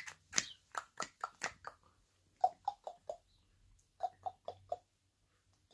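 A person clicking and snapping close to a baby. There is a quick run of about eight sharp snaps, then two runs of four short, hollow popping clicks, and a third run starts at the very end.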